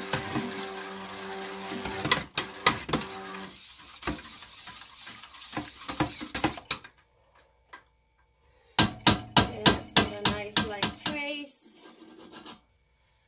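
Stick blender running on low in soap batter, then switched off about three and a half seconds in. Light clinks and scrapes of utensils against the container follow, and a quick run of sharp knocks comes later on.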